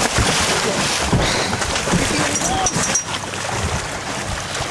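Wind buffeting the microphone over water and boat noise, with scattered knocks and thumps on the boat.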